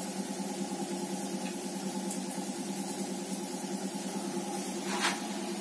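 RO purifier's booster pump running with a steady hum, an old repaired pump pushing 3700-TDS feed water through a new membrane. A short click about five seconds in.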